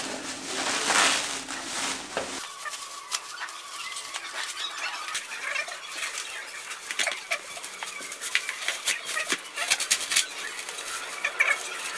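Cling film being torn and pulled off a wrapped body, with many quick crinkling crackles and snaps of the stretched plastic film from about two seconds in.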